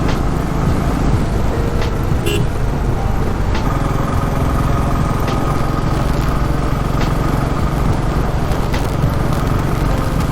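Royal Enfield Classic 350's single-cylinder engine running at a steady cruise, heard from the riding motorcycle under steady wind and road noise. Short sharp clicks come every second or two.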